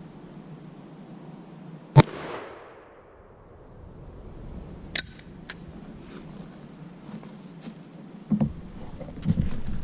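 A Magnum Research Desert Eagle .50 AE pistol firing a single shot about two seconds in, its report trailing off over about a second. A couple of sharp clicks follow a few seconds later, then handling knocks near the end.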